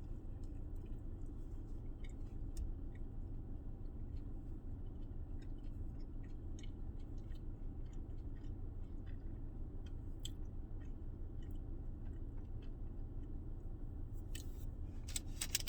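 Chewing mouthfuls of a breakfast bacon crunchwrap, with faint irregular crunches and mouth sounds over a steady low hum.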